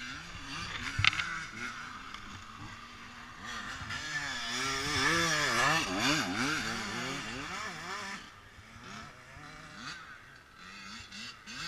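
Honda 400EX ATVs' single-cylinder four-stroke engines running, one revving up and down again and again, loudest about five seconds in. A sharp click about a second in.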